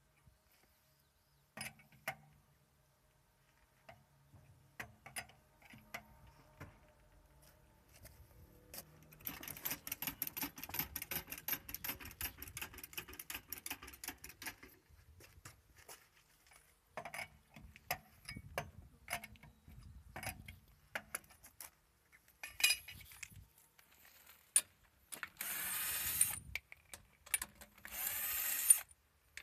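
Tire-change tool sounds: scattered metallic clicks and knocks from lug nuts being worked with a cross wrench, then a long run of quick rhythmic clicking from a hydraulic floor jack being pumped. Near the end, a cordless electric screwdriver (not an impact driver) runs twice, about a second each time, spinning lug nuts.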